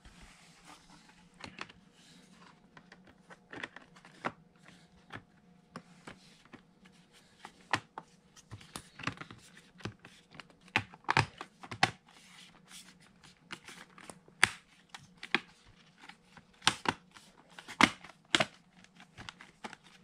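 Plastic bottom cover of an HP Omen laptop being pressed down by hand, its clips snapping into place with a series of sharp clicks. The clicks are sparse at first and come thicker and louder in the second half.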